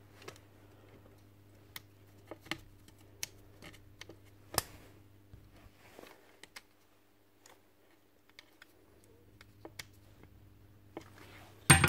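Screwdriver turning the terminal screws of a strip connector and wires being pushed in, inside a plastic site-transformer housing: scattered small clicks and scrapes over a faint steady hum, with a louder knock near the end.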